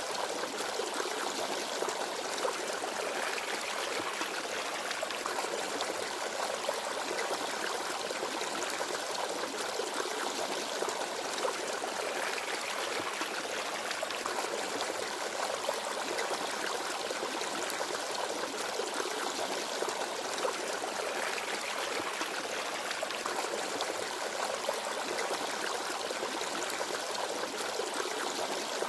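Small forest stream babbling and trickling over rocks, a steady flow of water with light splashes and no birdsong.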